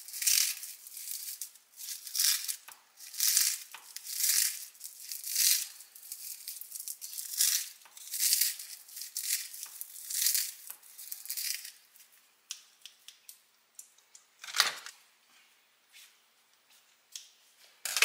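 Kitchen scissors cutting crisp dried seasoned nori, a run of dry crunchy snips at roughly one to two a second that stops about twelve seconds in. After that come a few light clicks and a single sharp knock.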